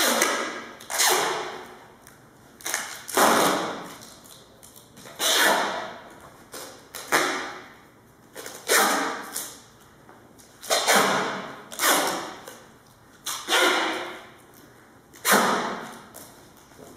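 A series of sharp, loud bangs, about a dozen at irregular intervals of one to two seconds, each ringing out briefly in a large, bare room.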